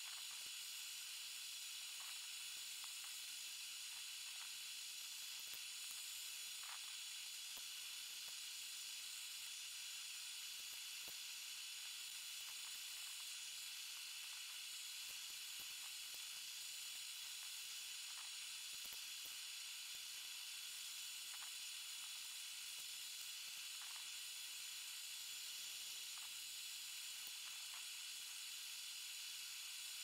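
Steady, faint hiss of a propane gas forge burner, with a few light clicks here and there.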